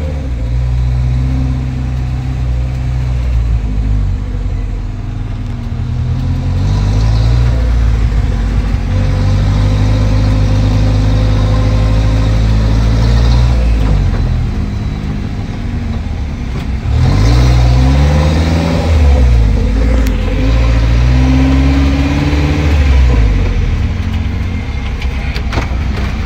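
Maruti Gypsy's engine heard from inside the cab while crawling along a muddy off-road track. The engine note rises and falls through the gears, with quick revs up and down about two-thirds of the way in.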